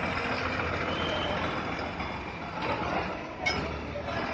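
MSRTC Shivshahi bus running close by as it moves off, a steady dense engine and road noise, with a brief sharp sound about three and a half seconds in.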